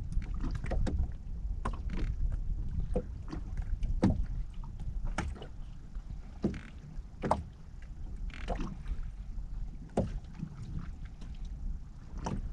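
Water lapping against the hull of a small drifting boat, with a low rumble of wind on the microphone and scattered sharp knocks.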